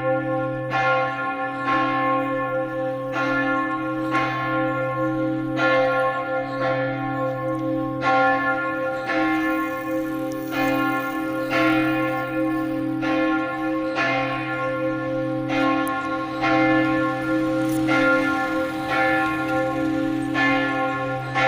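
Church bell pealing, struck roughly once a second, each stroke ringing on into the next over a steady humming tone.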